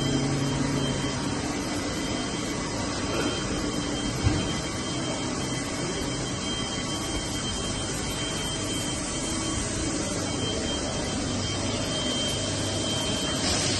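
Machinery running steadily on a factory floor, a constant even noise with a thin high whine held through it. A single knock comes about four seconds in.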